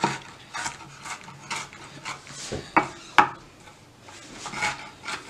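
Chef's knife dicing green bell pepper on a wooden cutting board: uneven chopping strokes knocking against the board about two a second, with two sharper knocks near the middle.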